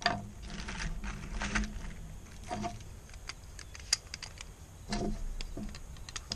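Cartridges and a plastic ETS C.A.M. magazine loader clicking and rattling as rounds are pushed into a hard-to-load pistol-caliber carbine magazine: irregular clicks and short clatters.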